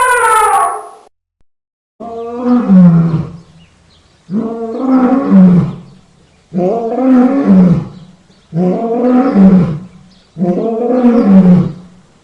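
Deep roaring calls of a large wild animal, repeated five times about two seconds apart, each about a second and a half long with the pitch dropping at its end. A different call fades out about a second in, before the roars begin.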